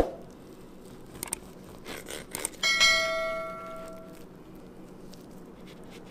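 A steel knife or fork strikes a cut-glass plate about two and a half seconds in, and the plate rings with a clear, bell-like tone that fades over about a second and a half. A few softer clicks of cutlery on the plate come before it.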